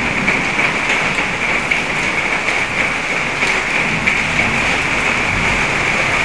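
Steady, heavy rain: an even hiss dense with the patter of drops striking a surface.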